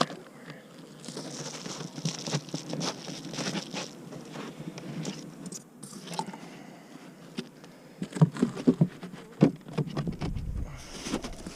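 Irregular knocks and scrapes of beehive boxes and lids being handled and opened, with the sharpest knocks about eight to ten seconds in.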